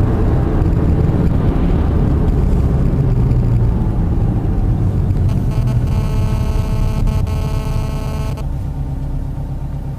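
Car engine and tyre rumble heard from inside the cabin while driving on a tarmac road, easing off gradually. A steady pitched tone with several overtones sounds for about three seconds from around the middle.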